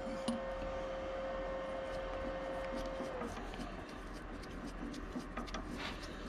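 Milling machine's motor hum, one steady tone that dips and dies away about three seconds in. Then faint clicks and rubbing as a tap held in the drill chuck is turned by hand to start a thread in a round metal part.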